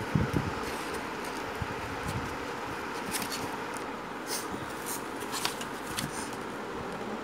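Steady background hum with kittens scrabbling and rustling against a paper gift bag: scattered light clicks and rustles, with a couple of louder knocks near the start.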